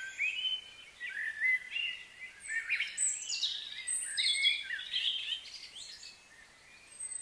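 Small birds chirping and calling in quick, irregular short notes, busiest around the middle and thinning out near the end.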